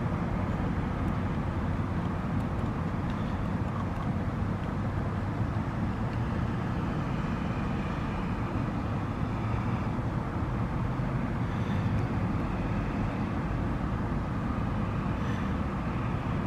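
A beaver gnawing and chewing on a stripped log, under a steady low rumble.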